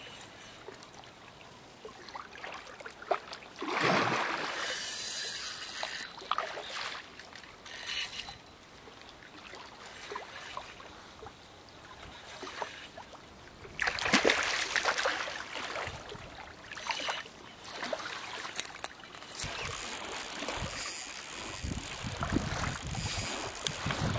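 Small waves lapping on a sandy lake shore, with wind gusting on the microphone, loudest a few seconds in and again about halfway.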